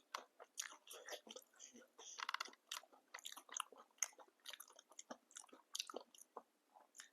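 Close-miked chewing of papdi chaat: the crisp fried papdi wafers crunch and crackle in many quick small bites between the teeth, with a short pitched sound a little past two seconds in.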